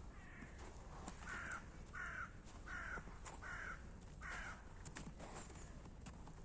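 A crow cawing about six times in a steady series, roughly one caw every two-thirds of a second, stopping a little after the middle. Faint footsteps sound throughout.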